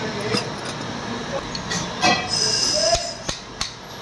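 Spanner clinking on the connecting-rod locking nut of a bag closer sewing machine head as the nut is tightened, with a few sharp metal knocks near the end.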